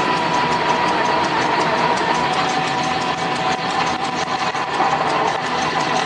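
Drill press running with its bit cutting down through a metal block: a steady motor hum with a fast, even ticking over it.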